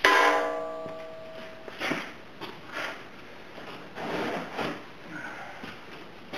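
A single sharp hammer strike on metal at the rear differential, ringing with several clear tones for about a second and a half, while the old pinion seal is being knocked out. It is followed by scattered softer scuffs and knocks.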